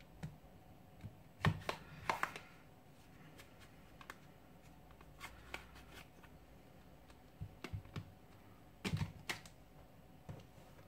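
Scattered light plastic clicks and taps from an Asus Zenfone 2 being handled on a cloth-covered bench while its snap-on plastic back cover is worked loose. Louder groups of clicks come about a second and a half in and again about nine seconds in.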